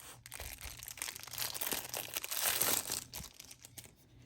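Packaging crinkling and rustling as it is handled, loudest about two and a half seconds in and fading away near the end.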